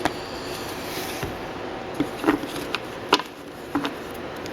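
A foil pack of hockey cards being handled and opened: a few short, sharp crinkles and clicks at uneven intervals over a steady low hiss.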